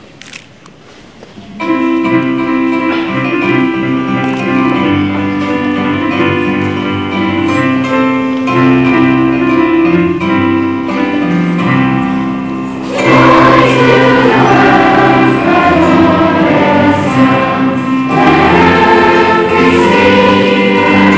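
Children's choir singing with keyboard accompaniment. The keyboard plays an introduction of held chords for about ten seconds, then the voices come in and the music grows louder.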